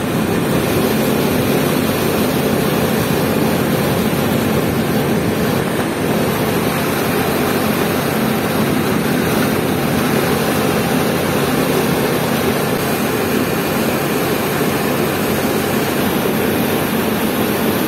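Boat engine running steadily while under way, a constant drone.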